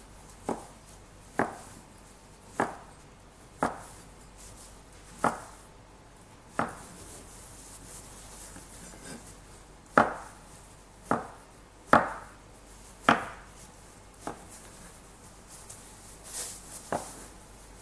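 Chef's knife chopping cucumber on a wooden cutting board: about a dozen single sharp strokes, roughly one a second, with a pause of a few seconds midway.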